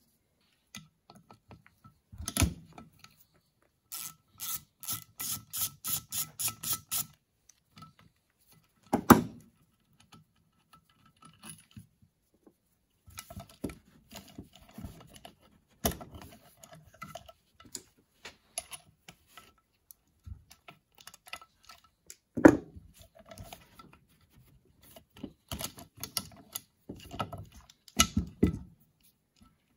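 Hand tools and small metal parts clicking and knocking as a Motorcraft 2150 two-barrel carburetor is taken apart on a workbench, with a few sharper knocks among lighter clicks. A few seconds in comes a quick run of about ten evenly spaced clicks, roughly three a second.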